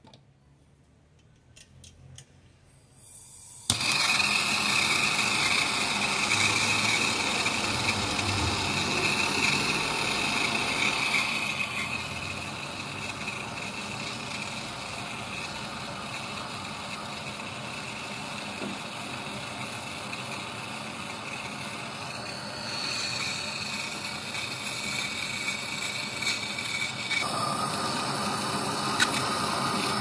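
A handheld gas torch lights with a sudden whoosh about four seconds in, then its flame hisses steadily while a service valve is soldered onto a copper refrigerator capillary tube. The hiss changes in tone a few times as the flame is worked. A few faint clicks come before it lights.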